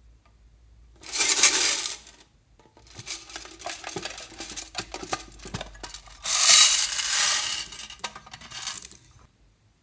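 Small beads rattling and clattering in a metal tin and its tray as the tin is handled, opened and tipped. There are two loud rattling rushes, about a second in and again around six seconds, with scattered clicks and taps between.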